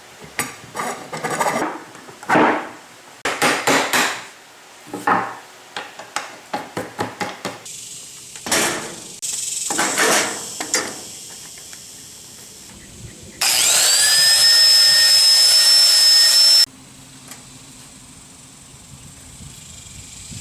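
Clanks and knocks of handling a rusty steel roller in a workshop fixture. Near the middle, a power tool, an angle grinder fitted with a wire cup brush for stripping the rust, spins up with a rising whine that settles and runs for about three seconds, then cuts off abruptly.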